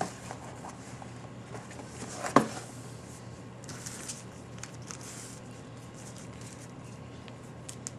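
Foil trading-card packs rustling and shuffling as they are handled and stacked on a desk, with one sharp knock about two and a half seconds in. A faint steady hum runs underneath.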